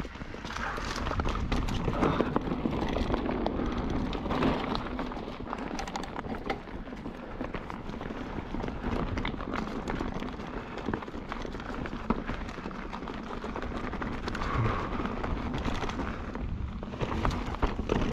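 Kellys Swag 50 mountain bike riding down a dry, leaf-strewn dirt trail: tyres rolling and crunching through leaves and dirt, with many small clicks and knocks from the bike rattling over bumps and roots.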